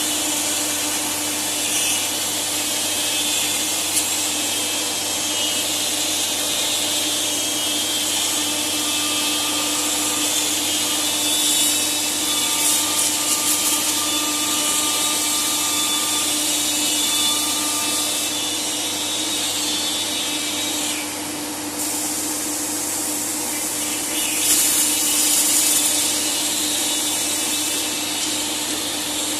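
CNC wood router running: a steady spindle whine with a constant hum and the hiss of the cutter working wood, dropping briefly about two-thirds of the way through.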